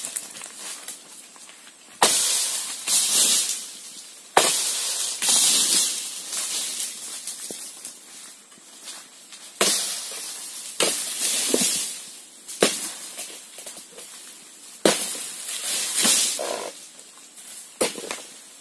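Oil palm harvesting chisel (dodos) on a long pole jabbed into the frond bases of an oil palm: sharp chopping strikes every couple of seconds, each followed by a rustle of shaking fronds.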